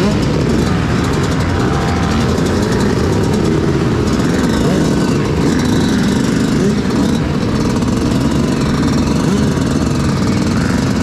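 Many motocross bike engines running together at close range, idling and being blipped, with several overlapping rises and falls in pitch. The nearest is the rider's own Yamaha YZ125 two-stroke.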